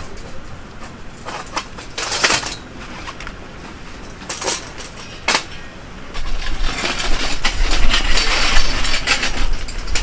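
Steel square tubes being handled on metal stand frames: scattered metal clanks and knocks. From about six seconds in, a louder steady rushing noise with a low rumble comes in.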